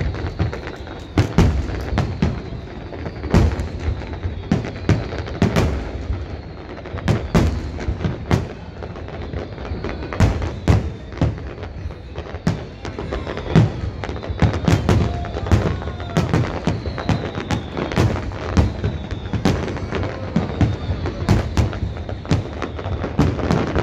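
Fireworks display: shells bursting in quick, irregular succession, a few bangs a second, over a continuous crackle.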